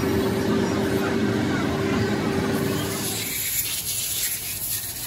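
Steady hum of an idling engine that fades away about three seconds in. A high, even hiss takes over near the end.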